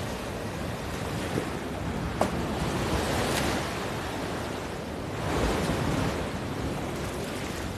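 Sea waves breaking and washing in a steady rush of surf, swelling louder about five seconds in.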